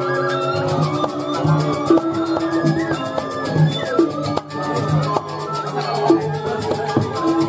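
Balinese gamelan music accompanying a Jauk dance: bronze metallophones and gongs ringing in sustained tones, punctuated by drum strokes.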